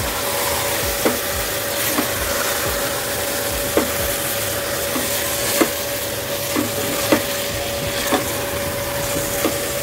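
Beef, onion and tomato sizzling in hot oil in a metal pressure cooker while a silicone spatula stirs them, knocking and scraping against the pot about once a second. A faint steady hum runs underneath.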